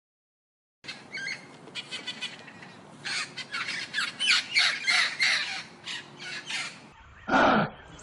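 Birds giving a rapid series of short, harsh calls, several a second, after a brief silence at the start. Near the end a single louder, deeper animal call follows.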